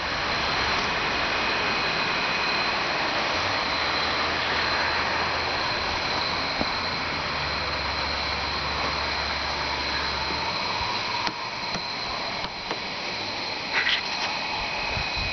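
John Deere 170 lawn tractor engine running steadily, an even drone with a thin high whine over it. There are a few light knocks near the end.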